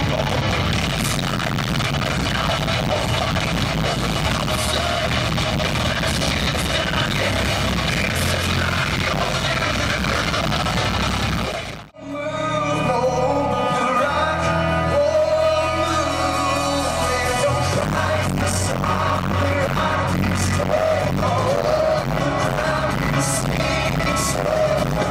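Live band music in a large arena, heard from the seats: loud rock first, then a sudden break about halfway through, and a second band comes in with a singer over drums and bass.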